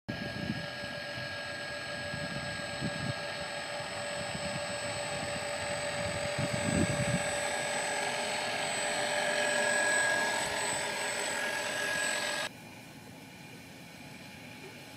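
Steady electric-motor whine from a radio-controlled model warship under way, with wind buffeting the microphone. The whine cuts off sharply about twelve seconds in, leaving a softer hiss of water and wind.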